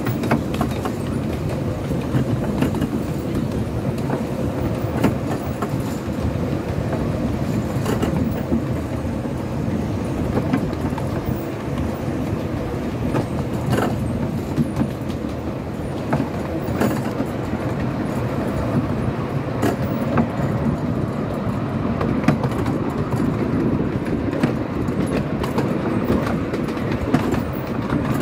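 Miniature railway carriage running along the track: a steady rumble of wheels on rail, with irregular clicks as the wheels pass over the rail joints.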